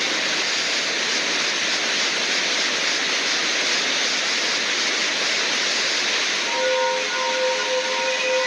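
A 'sound of a planet' space-audio track: a steady rushing hiss, joined about six and a half seconds in by several held whistling tones.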